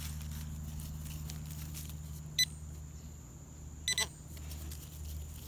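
Handheld metal-detecting pinpointer beeping at a target in the dig hole: one short beep a little over two seconds in, then two quick beeps about four seconds in, signalling metal close to its tip. A low steady hum runs underneath.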